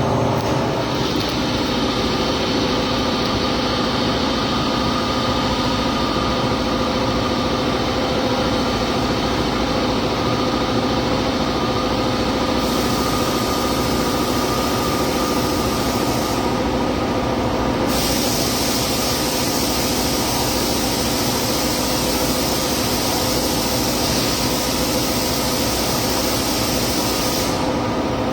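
Cobot welding run: a welding arc hissing and crackling over a steady machine hum. The hiss grows stronger about twelve seconds in, breaks off for about a second and a half, then resumes and stops near the end, as the robot welds its programmed segments.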